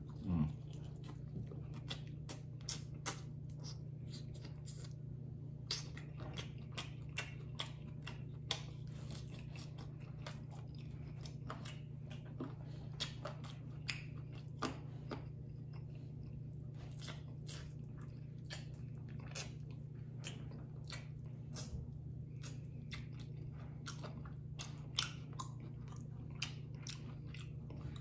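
Close-up chewing of crunchy fried chicken wings: a bite into the wing, then irregular crisp crunches and wet clicks of chewing. A steady low hum runs underneath.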